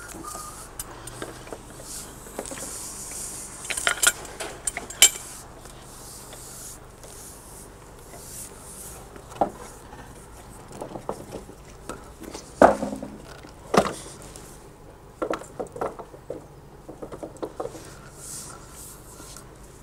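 Irregular knocks and clinks, a dozen or so spread out and sharp, from a steeplejack's ladders and iron dogs being handled at a brick chimney.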